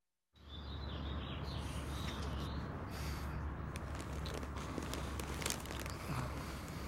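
Quiet room ambience with a steady low hum and faint bird chirps in the first couple of seconds, then a few soft clicks and rustles as a man stirs on a sofa.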